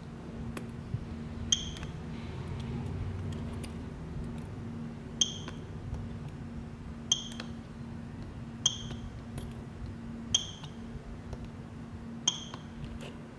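Homemade battery spot welder firing weld pulses through its probe electrodes into nickel strip on 18650 cells: six sharp snaps, each with a brief metallic ring, about one every one and a half to two seconds, over a steady low hum.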